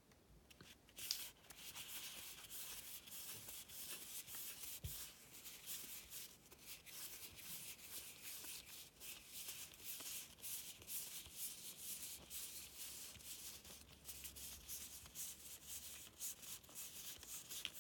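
Baseball cards being slid and flicked through by hand: faint, continuous rubbing of card on card with many light ticks.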